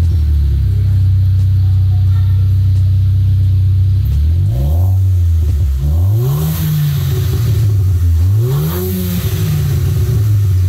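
VW Golf GTI Mk5's 2.0 TFSI turbocharged four-cylinder idling steadily through a newly fitted Borla cat-back exhaust, then revved three times, each rev rising and dropping back to idle. The exhaust note is mild, sounding almost the same as the stock system.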